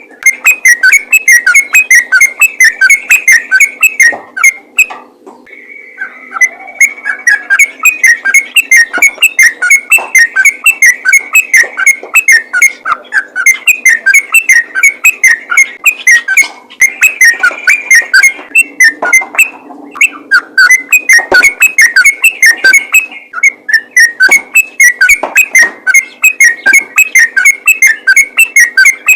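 Yellow-vented bulbul singing a loud, rapid, almost unbroken stream of short chattering whistled notes, breaking off briefly about five seconds in and again about nineteen seconds in; this non-stop 'ropel' singing is used to call other bulbuls.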